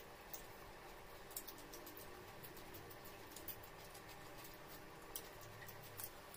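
Faint, scattered small clicks and ticks at irregular intervals over a low, steady background hum.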